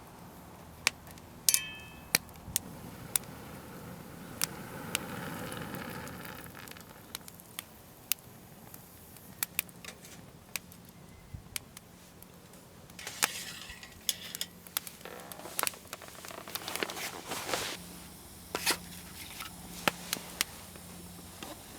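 Wood fire crackling, with sharp irregular pops and a busier stretch of louder crackle and noise about two thirds of the way through.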